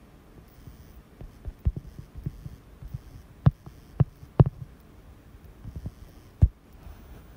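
Irregular soft taps and knocks of a stylus on a tablet screen during handwriting, with a few sharper knocks through the middle and one near the end.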